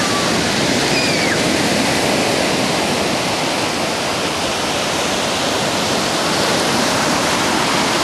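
Ocean surf breaking and washing onto a sandy beach: a steady, loud rush of water. A couple of brief high cries sound in the first second.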